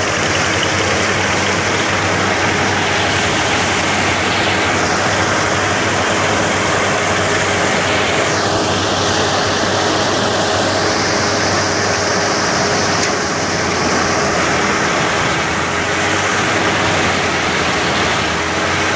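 Loud, steady mechanical drone: constant hiss with a low hum underneath, unchanging throughout.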